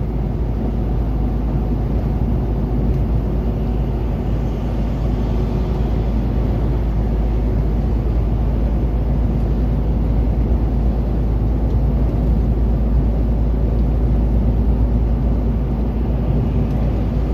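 Steady low drone inside a semi-truck's cab cruising at motorway speed: engine hum together with tyre and road noise on a wet road.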